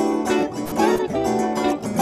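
Electric guitar played solo in a jazz style, a quick run of single notes and chords.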